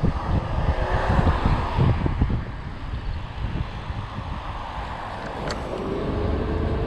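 Wind buffeting the microphone of a camera riding on a moving bicycle, a gusty low rush. A single sharp click comes about five and a half seconds in, and a steady hum sets in near the end.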